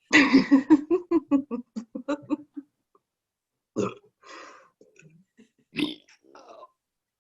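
A woman's long burp, rattling in quick pulses for about two and a half seconds, made as a cat impression, followed by a few short, quieter breathy sounds.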